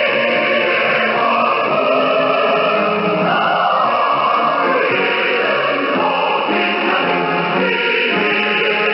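Choral music received on a shortwave radio: a choir singing, heard as thin, narrow-band audio with a faint haze of noise.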